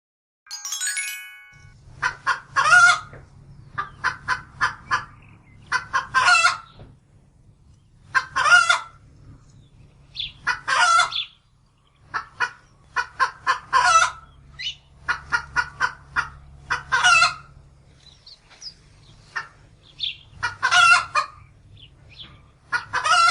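Hen cackling: about nine bouts of quick, short clucks, each ending in a longer, drawn-out call. A brief chime sounds about half a second in.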